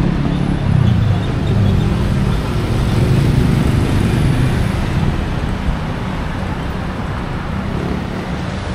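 Street traffic: a steady rumble of passing engines and tyres, a little louder in the first half.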